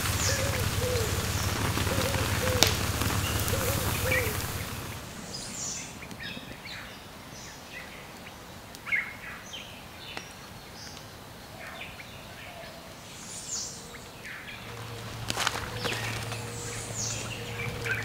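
Birds chirping in short, scattered calls. A steady rushing noise sits under them for the first five seconds, then drops away.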